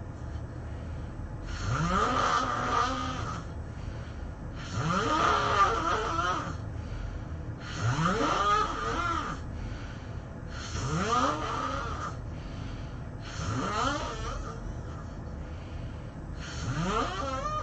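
A person snoring: six snores about three seconds apart, each rising in pitch as it goes.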